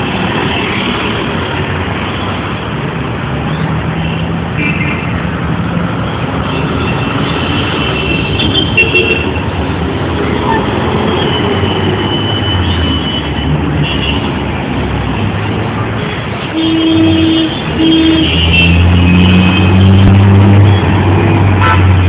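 Busy road traffic with a steady rumble of engines and tyres and many short horn toots. The traffic grows louder and deeper in the last few seconds.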